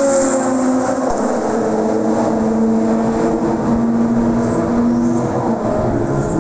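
Race car engines running at a steady loud level, several held engine pitches at once, one sliding slightly downward near the start as a car goes past.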